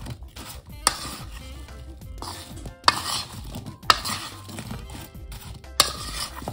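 A metal spoon tossing sliced apples in a bowl: the slices shuffle and slide against each other, with four sharp clinks of the spoon against the bowl.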